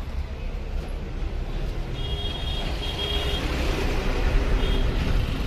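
Steady low rumble of background road traffic, with faint brief high tones about two seconds in and again near the end.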